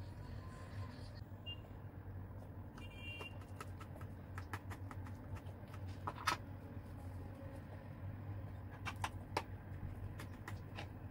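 Metal knife and fork tapping and clicking against a glass baking dish of baked pasta: scattered light taps, the sharpest about six seconds in and a quick run of them about nine seconds in, over a faint steady low hum. A brief high chirp comes about three seconds in.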